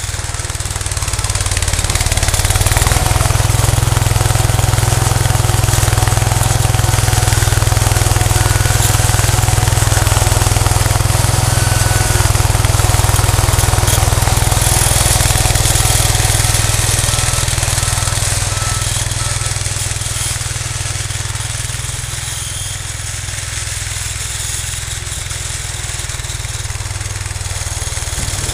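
Cub Cadet 149 garden tractor's single-cylinder Kohler engine running steadily under load while it plows snow with a front blade. It is loud while the tractor is close in the first half, fades somewhat as it moves away and grows louder again near the end.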